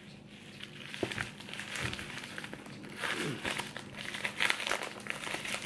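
Bubble-wrap mailer crinkling and rustling as it is worked open by hand. The crinkling is irregular and gets busier about halfway through.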